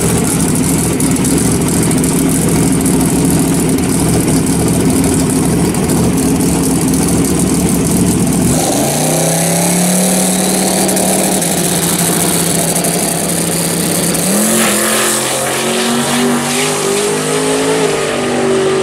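Ford Mustang drag car doing a burnout: the engine runs at high revs under a haze of tire-spin noise for about eight seconds. Then the engine holds a steady rev on the start line. About fourteen seconds in the car launches, and the revs climb in steps through the gears as it pulls away down the strip.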